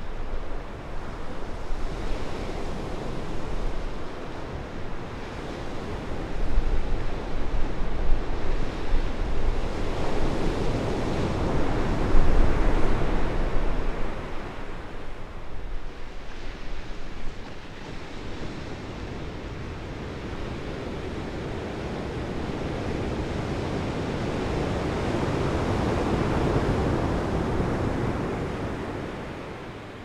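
Ocean surf breaking and washing up a sand beach, swelling twice in long surges before fading near the end, with some wind rumble on the microphone.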